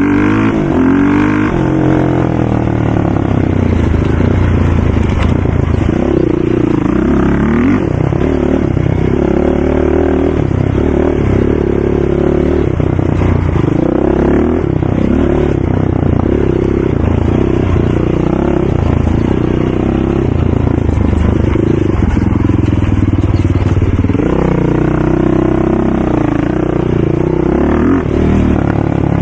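ATV engines running, their pitch rising and falling over and over as the throttle is opened and closed.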